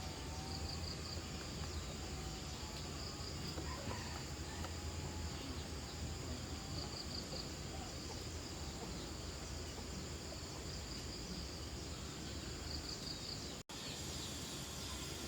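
Outdoor insect chorus: a steady high buzz with short chirps of about three quick pulses every few seconds, over a low steady hum. The sound cuts out for an instant near the end.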